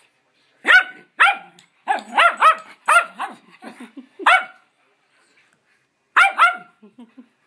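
Schnauzer barking in play: a quick run of sharp, high-pitched barks, each dropping in pitch at its tail, a pause of about two seconds, then two more barks near the end.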